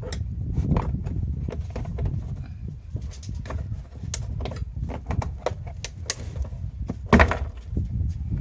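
Speaker cover in a car door being pried open: scattered short clicks and scrapes, with a louder crack about seven seconds in, over a steady low rumble.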